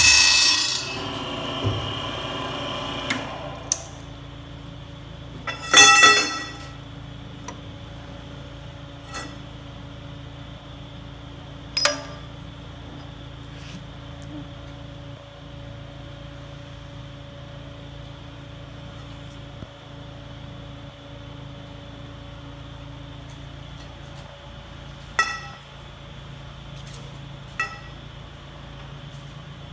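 The noise of a vertical metal-cutting circular saw dies away in the first second or two, leaving a steady low hum. Over it come sharp, ringing metal clinks as the cut pipe and the vise are handled: the loudest about six seconds in, another near twelve seconds, and two more near the end.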